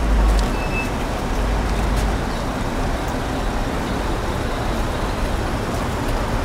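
Busy city-street traffic: a steady wash of buses and cars running, with a heavy low rumble in the first two seconds and a brief high beep just under a second in.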